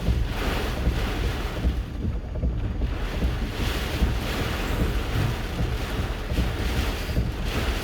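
Hurricane eyewall wind gusting against a parked vehicle: a heavy low rumble with swells of rushing noise every second or so, easing briefly about two seconds in.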